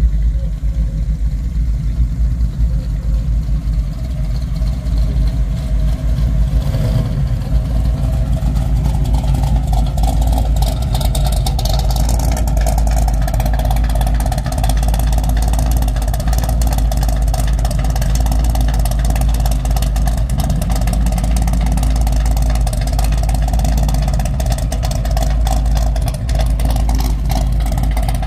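Classic car engine idling steadily with a deep, low rumble.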